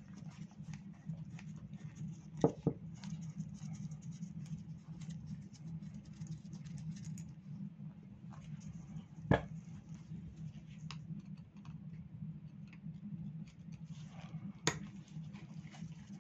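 Small hand tools and carburetor parts being handled during bench disassembly of a two-stroke scooter carburetor: scattered light clicks, taps and scrapes, with sharper knocks about two and a half, nine and fifteen seconds in, over a steady low hum.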